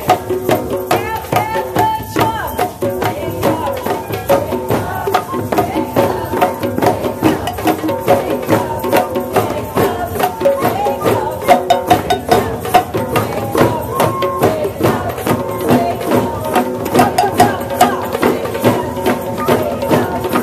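Group drum circle: many hand drums, frame drums and shakers playing a fast, steady rhythm together, with voices singing or chanting over it.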